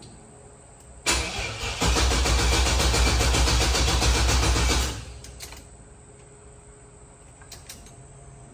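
Starter cranking a cold LS V8 with an even, rhythmic pulsing for about four seconds, then cutting off abruptly without the engine running on. This is a cold-start attempt on a tank that is nearly out of fuel.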